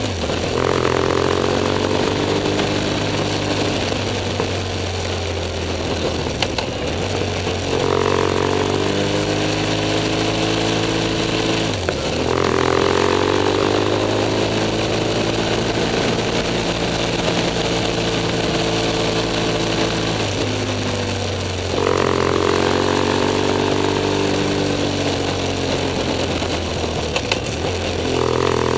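BMW F 800 S's parallel-twin engine running under way. Its note breaks and resets at gear changes about 8, 12 and 22 seconds in and again near the end, steadying in pitch between them.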